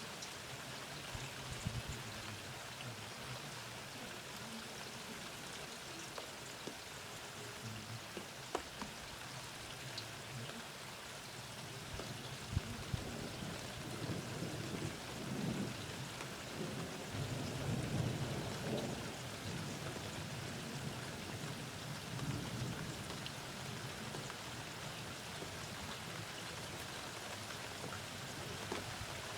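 Steady rain falling, with scattered drops ticking close by. About halfway through, a low roll of thunder swells up and then dies away.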